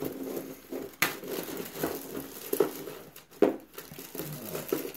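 Clear plastic bag of carburetor parts crinkling as hands open it and rummage through it, with a few sharper crackles, the loudest about a second in and again about three and a half seconds in.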